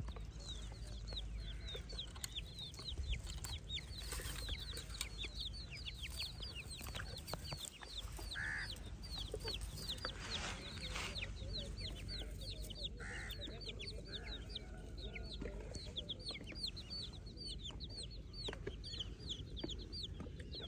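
Young chicks peeping continuously: a steady stream of short, high, downward-sliding peeps, several a second, from a few chicks together. A few lower calls stand out twice, about midway and again a few seconds later.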